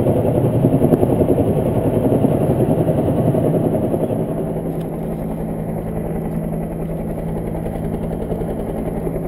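A motor running steadily, heard muffled, with a low steady hum that comes in about four seconds in as the overall level eases slightly.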